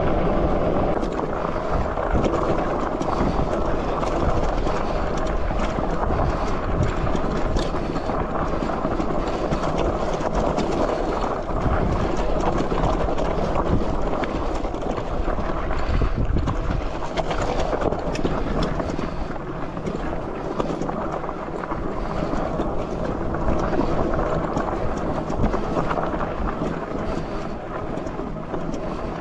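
Wind buffeting a handlebar-mounted microphone on a moving e-bike, with the bike knocking and rattling over a rough, stony dirt trail.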